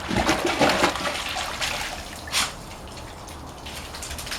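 Pool water splashing and sloshing as a small chihuahua thrashes and paddles in it, louder at first and easing off, with one sharper splash a little past halfway.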